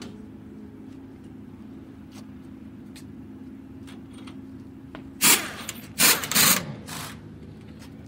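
GT race car garage ambience: a steady low hum with a few light clicks, then about five seconds in two loud hissing bursts, the second trailing off in a falling tone, and a shorter burst just before the end.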